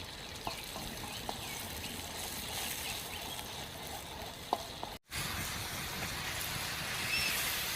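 Bamboo shoots and spices sizzling steadily as they are stir-fried in a pan, with a few light clicks from the stirring. The sound drops out for an instant about five seconds in.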